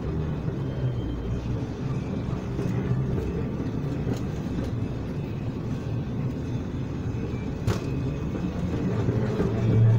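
Moving walkway running, a steady low mechanical rumble, with a single sharp click about three-quarters of the way through.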